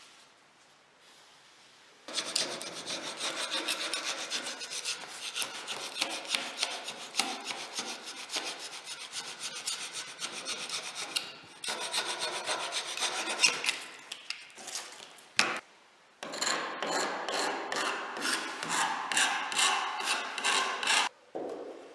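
Rapid back-and-forth rubbing strokes of a hand tool working a surface, like hand sanding or rasping. The strokes start about two seconds in, pause briefly after the middle, resume as more distinct evenly spaced strokes, and stop just before the end.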